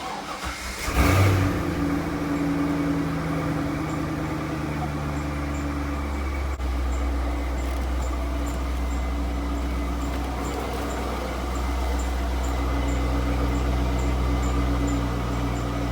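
1998 C5 Corvette's LS1 V8 cranked and started, catching with a brief rev about a second in, then idling steadily. A faint high ticking, about two and a half a second, runs under the idle from about five seconds in.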